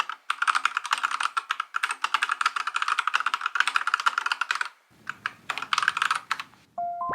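Fast typing on an Akko 5108B mechanical keyboard: a rapid, dense run of key clicks, a brief pause about five seconds in, then another short burst. A few chiming tones start just before the end.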